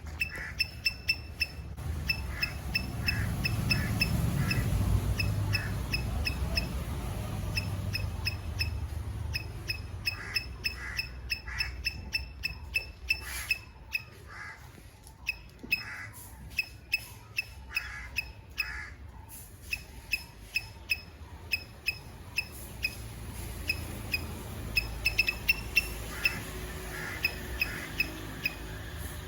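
Squirrel calling: a long series of short, high chirps, about one to two a second, over a low rumble of background noise.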